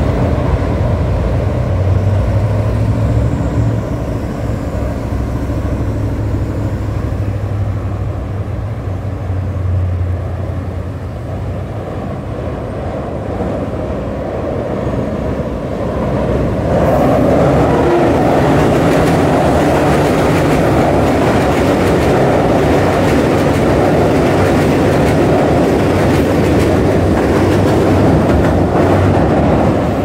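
Street traffic with a low engine drone, then about halfway in a Long Island Rail Road electric commuter train runs along the elevated steel viaduct overhead, a loud steady rolling noise of wheels on rail that holds to the end. No horn sounds.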